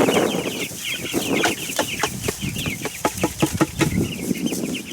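A flock of young chicks peeping continuously in short, high chirps. A quick run of sharp taps and knocks sounds through the middle.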